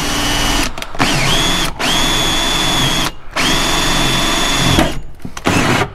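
Power drill with a hole saw spinning in reverse against a fibreglass boat hull's gel coat, reversed so the gel coat won't chip. It runs in several stretches with brief pauses between them, with a steady high whine over the grinding.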